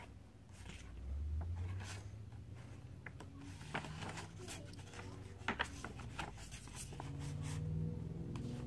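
Pages of a hardcover picture book being turned by hand: a series of paper rustles and short crisp flicks, with a couple of sharper snaps about five and a half seconds in, over a low rumble.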